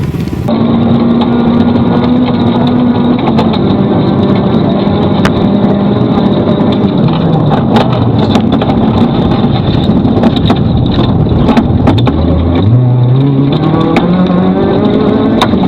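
Rally car engine running hard, its note falling as the car slows, then climbing again from about twelve seconds in as it accelerates, with scattered sharp clicks over it.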